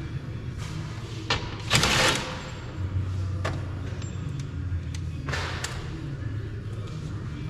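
Screws being taken out inside a car door: a few sharp clicks and two short scraping noises, the louder about two seconds in, over a steady low hum.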